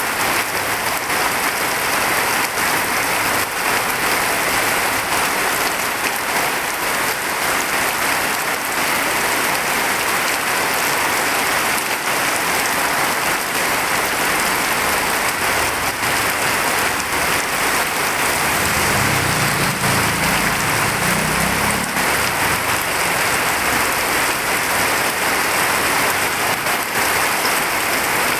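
Steady heavy rain pouring down, with a brief low rumble about two-thirds of the way through.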